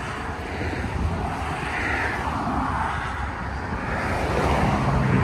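Road traffic passing: tyre and engine noise of cars swelling and fading in turn, with a deeper engine hum building near the end.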